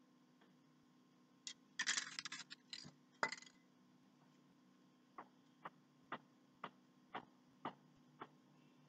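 Clinks and clatter of hard objects being handled, ending in a sharper knock. Then seven light clicks at an even pace, about two a second.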